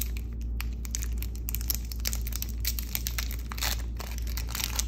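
Foil trading-card pack wrapper being torn open and crinkled by hand: an irregular run of sharp crackles and rustles.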